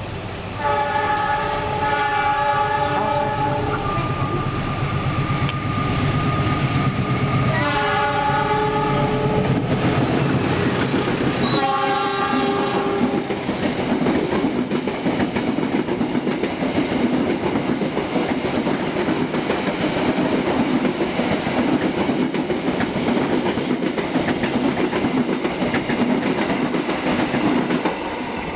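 A locomotive horn sounds three times in the first half as the Bima express approaches, then the express passes close by on the adjacent track, its carriages and wheels on the rails making a loud steady noise until they have gone by near the end.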